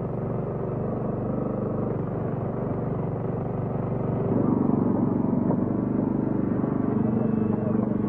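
Lancia 037 rally car's supercharged four-cylinder engine running steadily at idle, growing louder about four seconds in.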